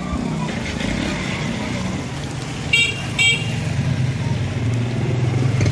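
Street traffic with a vehicle horn tooting twice in quick succession about three seconds in, over a low engine hum that grows louder near the end.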